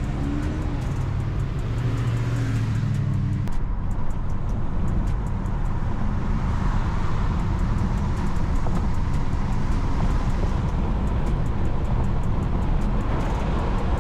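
Inside the cabin of a BMW F30 328i, with its N20 turbocharged four-cylinder running as the car drives. A steady engine tone is heard for about the first three seconds, then an even rush of road and tyre noise.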